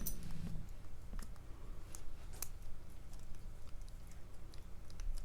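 Faint, irregular metallic clicks of a lock pick and tension wrench working in the keyway of a MAKO SFIC lock core, while the pins refuse to lift. A low steady hum runs underneath.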